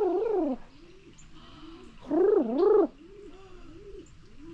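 A bird giving warbling, gurgling calls that swing up and down in pitch: a loud call at the start, another about two seconds in, then softer wavering ones.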